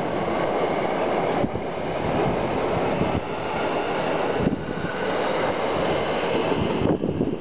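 Hankyu Kyoto Line electric train pulling out of the station, its cars rolling past close by with steady wheel-on-rail rumble and occasional knocks. The sound drops off near the end as the last car clears.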